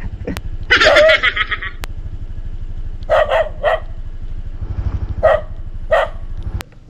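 A dog barking in short, separate bursts, about three in quick succession around the middle and two more later. Under the barks a motorcycle engine idles with a steady low throb, which stops abruptly near the end.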